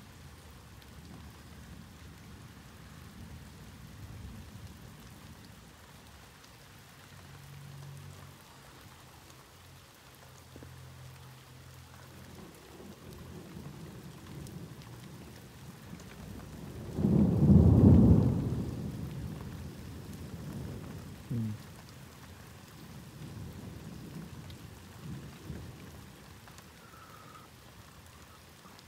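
Thunderstorm: steady rain with a loud thunderclap just past the middle that rolls off over a few seconds, and fainter rumbles of thunder before and after it.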